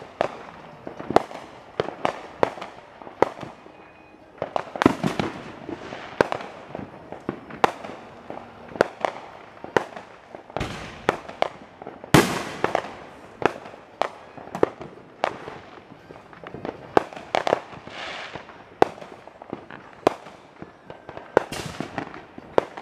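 Fireworks going off all around: a steady run of sharp bangs and pops at irregular spacing, sometimes several in a second, each with an echoing tail. One of the loudest bangs comes about twelve seconds in.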